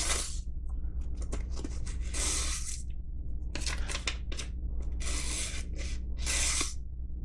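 A Damascus-steel ulu blade slicing through a sheet of paper play money in about five short, hissing strokes: a paper-cutting test of the edge, which is judged a good edge that could use a little refining.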